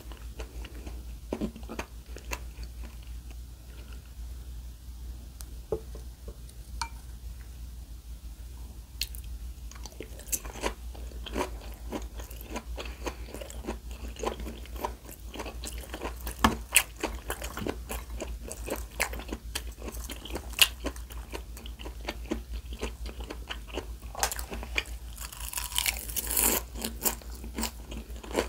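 Close-miked eating: irregular crunchy bites and chewing, with a denser run of crisp crunching near the end.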